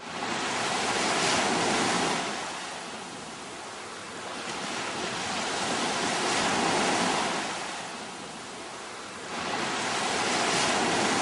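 Sea waves breaking on the shore, the surf swelling and fading three times, about every four seconds.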